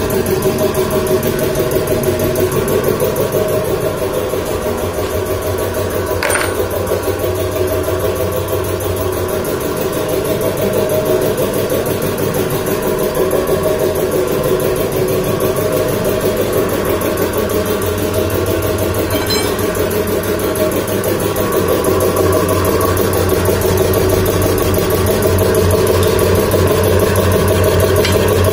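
Reciprocating piston air compressor running steadily, with a fast, even pulsing from its pump.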